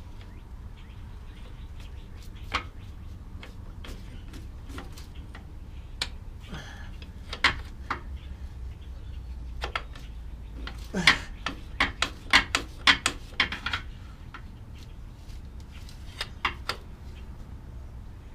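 Hand tools knocking and clinking on metal while a CV axle is worked loose from a car's front suspension: scattered sharp knocks, with a quick run of them about eleven to fourteen seconds in.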